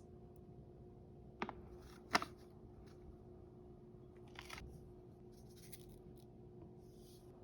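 Two sharp clicks a little under a second apart, then a softer click a couple of seconds later, from objects being handled, over a faint steady hum.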